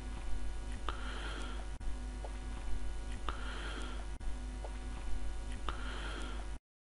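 Steady low electrical hum and hiss of the narration recording's background noise, with faint clicks. The same short stretch repeats about every two and a half seconds, and it cuts off suddenly near the end.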